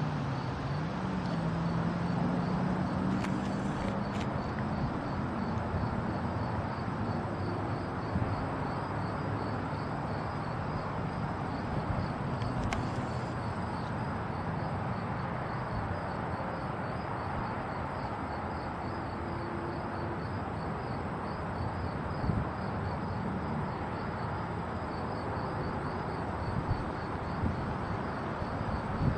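Distant Norfolk Southern freight train passing, the low drone of its diesel locomotives strongest in the first few seconds and then fading into a steady rumble. High, evenly pulsing insect chirping runs through it.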